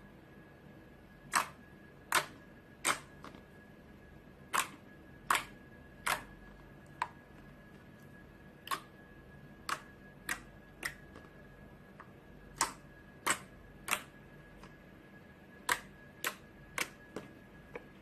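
Slime being pressed and played with, its trapped air pockets popping: about twenty short, sharp pops at irregular spacing, some in quick runs.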